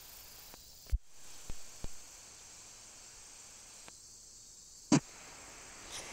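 Faint steady hiss broken by a few sharp isolated clicks, the loudest about one second in and about five seconds in.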